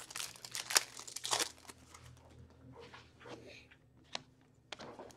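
Hockey card packs being torn open by hand, their wrappers crinkling and rustling. The crinkling is loudest and busiest in the first second and a half, then softer, scattered rustles follow.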